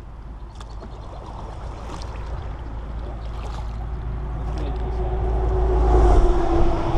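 An engine with a steady hum, growing steadily louder and peaking near the end, over a low rumble.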